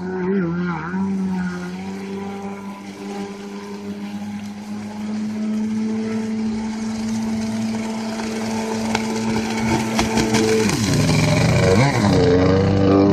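A 1995 Mastercraft Wetjet Duo ZX300 jet ski running across open water with its engine holding one steady note, growing louder as it draws closer. Near the end the engine note dips and swings up and down as the throttle changes.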